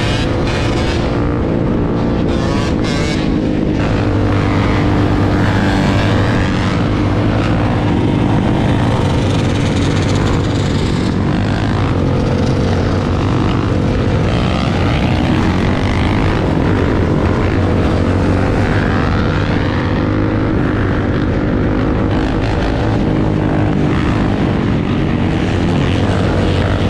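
Quad engine running at highway speed, its note rising and falling with the throttle, mixed with the engines of other dirt bikes and quads riding alongside and steady wind rush.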